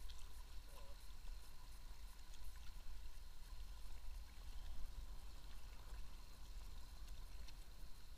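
Flowing river water washing and trickling around an inflatable kayak, with a steady low rumble underneath and a few faint ticks.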